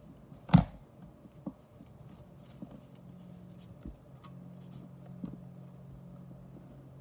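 Handling of a freshly unboxed diecast model car and its packaging: a sharp knock about half a second in, then a few light clicks and taps. A low steady hum sets in about three seconds in.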